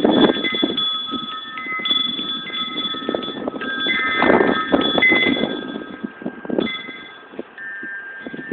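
Wind chimes ringing, several clear tones held and overlapping, with uneven rumbling from wind or handling on the phone's microphone.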